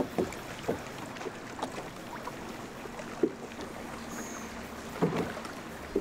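Small waves lapping against a fishing boat's hull, with scattered light knocks and slaps. The loudest cluster comes about five seconds in.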